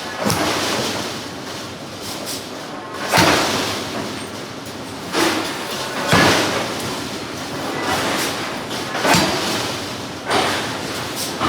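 Hydraulic forging hammer striking hot steel, about seven heavy blows at irregular intervals, each ringing on and dying away, over steady forge-shop machinery noise.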